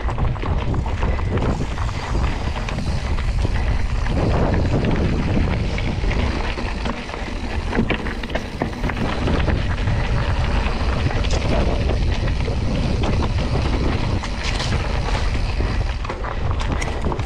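Mountain bike ridden fast over a rough dirt trail: a steady rush of wind on the microphone and tyre rumble, with frequent rattling clicks and knocks as the bike goes over bumps.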